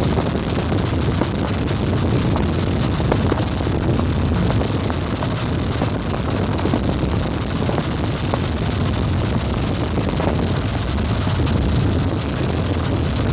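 Steady rushing rumble of wind and a vehicle, with wind buffeting the microphone.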